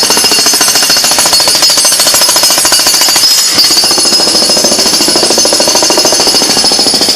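Jackhammer hammering continuously in a rapid, loud, steady rattle.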